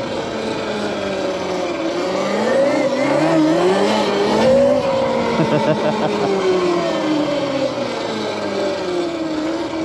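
Electric dirt bike's motor whining as it rides: the whine climbs in pitch to a peak about halfway through as the bike speeds up, then falls away as it slows.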